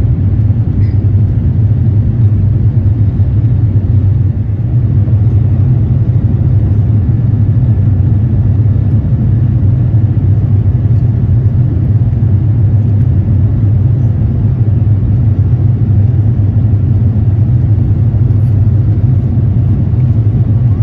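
Steady low rumble inside the cabin of an Airbus A350-900 climbing out after takeoff: its Rolls-Royce Trent XWB engines and the airflow along the fuselage, heard from a window seat behind the wing.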